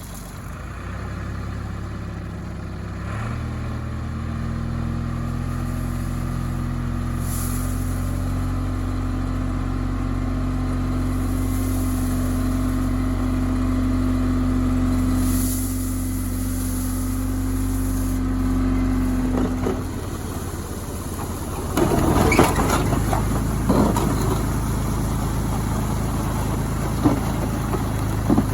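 Tractor engine running steadily. Its pitch steps up a few seconds in and drops back about two-thirds of the way through. Near the end, rough crunching and scraping of gravel sounds over the engine.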